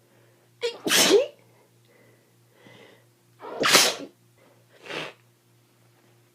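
A person with a cold sneezing twice, two loud sudden sneezes about a second in and near four seconds in, each led by a quick intake of breath, then a shorter, quieter sound about five seconds in.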